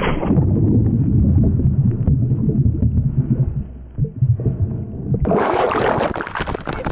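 Muffled sloshing and knocking of lake water heard from a camera plunged under the surface, dull with frequent small knocks. About five seconds in it changes abruptly to a brighter, splashy wash of water as the camera surfaces.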